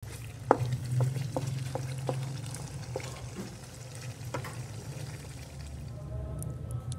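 A wooden spatula stirring chicken curry in hot oil in a pan, the gravy sizzling, with sharp knocks of the spatula against the pan over the first few seconds, the loudest about half a second in. A steady low hum runs underneath.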